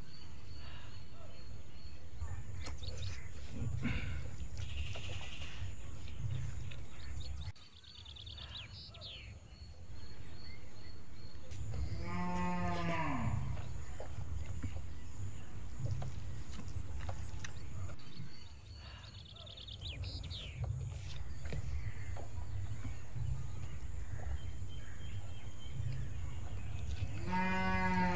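Cattle being driven past, with two long moos, one about twelve seconds in and one near the end. Under them runs a steady low rumble that drops away twice.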